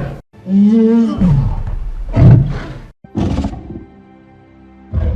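Kong, the giant ape monster, giving a run of roars and growls as a designed sound effect: a long bending call, a louder roar, then two short bursts. In the second half a steady held tone sits underneath.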